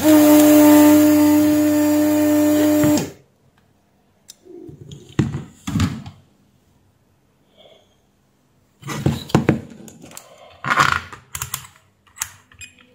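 Weller vacuum desoldering iron's suction pump running with a steady hum for about three seconds, drawing molten solder off a capacitor's leads, then cutting off. It is followed by scattered clicks and light knocks from the capacitor being pulled from the circuit board and handled.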